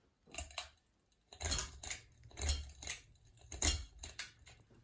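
Ceiling fan pull chain being worked: a series of about six sharp metallic clicks and clinks, a second or less apart, from the pull-chain switch and the swinging chain.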